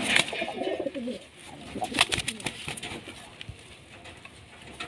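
Giribaz high-flyer pigeons cooing in the loft, a low rolling coo in the first second or so, with a few sharp clicks about two seconds in.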